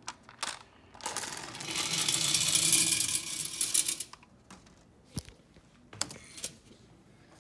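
Marbles poured from a plastic cup into a marble sorter, a dense rattling clatter lasting about three seconds, followed by a few separate clicks and knocks.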